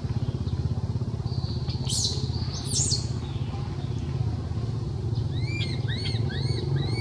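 A small engine idles steadily with a low pulsing hum. Two brief rising squeals come a couple of seconds in, and a quick run of about five high arched chirps comes near the end.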